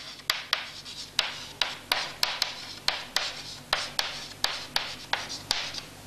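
Chalk writing on a chalkboard: a quick run of sharp taps, about four a second, with faint scraping between them as the words are written.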